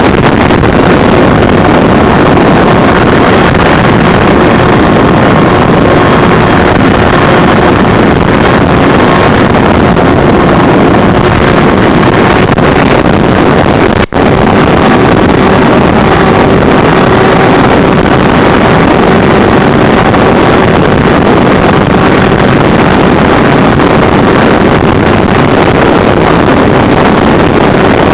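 FPV quadcopter's electric motors and propellers running steadily in flight, a loud, constant rushing noise with a faint steady whine through it and wind buffeting the microphone. The sound drops out for a moment about halfway through.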